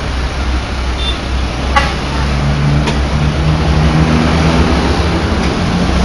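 Bus engine running close by among road traffic, its pitch rising a little from about two seconds in as it revs. Two brief sharp clicks occur about two and three seconds in.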